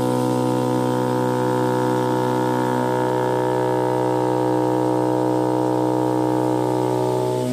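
400 W oscillating knife of a CNC gasket cutting machine running as it cuts 10 mm silicone gasket sheet: a steady hum with many overtones. Its tone shifts slightly about three seconds in, and it drops away near the end.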